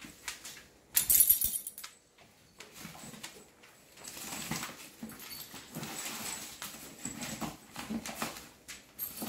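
Soft whimpering from a dog while kittens play-fight, with a short, loud burst of noise about a second in.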